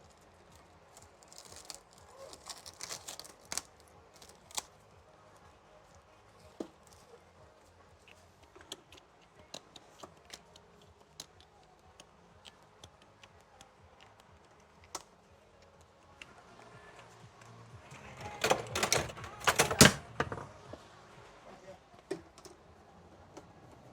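Scattered light clicks and taps of tools and small hardware being handled, with a louder clatter about eighteen to twenty seconds in.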